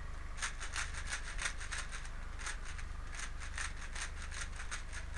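Fast, uneven run of scraping, rustling strokes, about six a second, in two spells with a short break about two seconds in.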